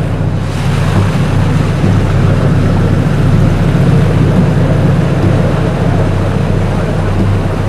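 Fishing launch under way: its engines run at a steady low drone while water rushes along the hull and churns in the wake.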